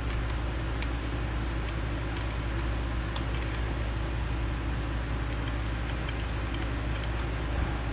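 Steady background hum, with a few faint light clicks of a small wrench on the carburetor's accelerator pump arm adjusting screw.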